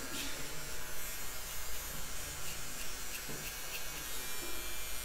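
Electric hair clipper running with a steady buzz, taken down to zero on the sides for a skin fade.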